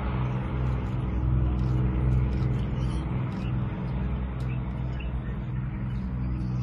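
Avro Lancaster's four Rolls-Royce Merlin V12 engines droning as the bomber approaches low: a steady low hum that swells and fades in a slow throb.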